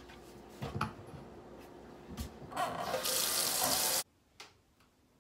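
Kitchen faucet running into the sink for dishwashing, with a few knocks; the water comes on strong about three seconds in, then cuts off suddenly.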